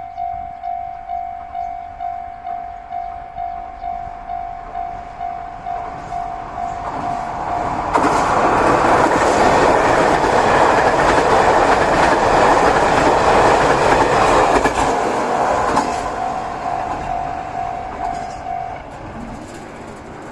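Level-crossing warning bell ringing at about two strokes a second. About eight seconds in, a train passes over the crossing for some eight seconds, loud enough to drown the bell. The bell then comes back faintly and stops near the end.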